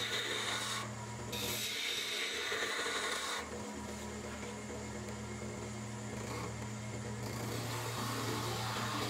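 Wood lathe running with a steady hum while a turning tool cuts the spinning green arbutus goblet stem with a scraping hiss. The cutting stops about three and a half seconds in, leaving the lathe's hum, and starts again near the end.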